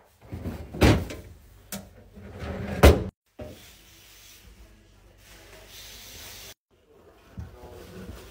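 Knocks and clacks of items and containers being handled while a fridge is restocked, with a sharp knock about three seconds in as the loudest. The sound cuts off abruptly twice, between short clips.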